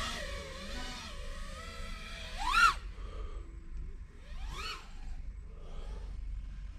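FPV quadcopter's MADUK Bando Smurfer 2406 1900kv motors whining in flight, their pitch sliding up and down with the throttle. There are two sharp punches where the whine rises steeply and falls back, the first and loudest about two and a half seconds in and another near four and a half seconds. A low wind rumble runs underneath.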